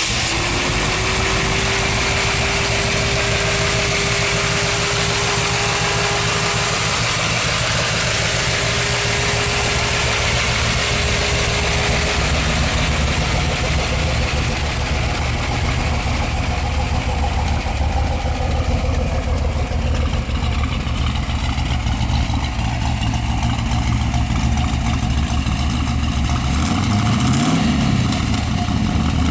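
A 454 cubic-inch V8 with tri-power carburettors idling steadily, with a steady whine over it for the first dozen seconds. Near the end the engine speed rises and falls a few times.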